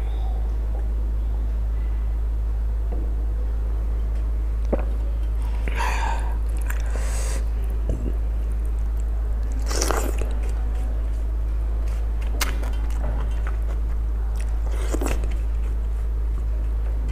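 Close-miked eating sounds: fingers mixing rice with curry on a steel plate and mouth chewing, heard as scattered wet smacks and clicks over a steady low hum.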